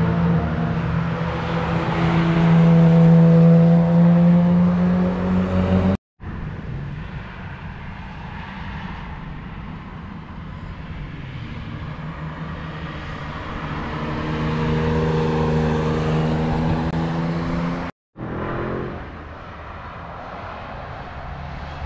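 Cars driving past one after another under power, engine notes rising and falling as they go by. The sound cuts out abruptly twice, where separate clips are joined.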